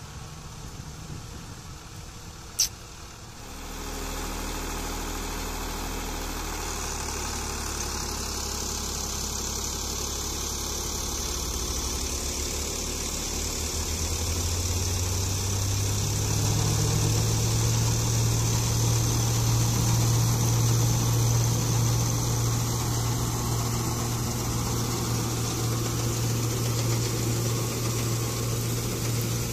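Sonalika Sikandar RX 50 tractor engine running under load, driving a Dashmesh 517 straw reaper. The engine gets louder about four seconds in and its note steps up around fifteen seconds, with a steady hiss above it. A single sharp click about two and a half seconds in.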